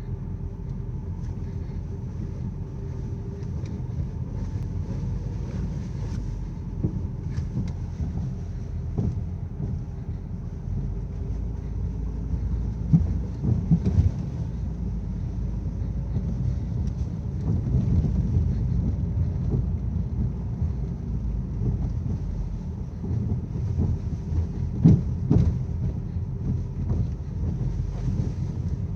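Steady low rumble of a Ford Focus on the move, with irregular sharp knocks. The clearest knocks come about halfway through and again near the end. The owner takes these for a fault noise from the steering rack (steering box).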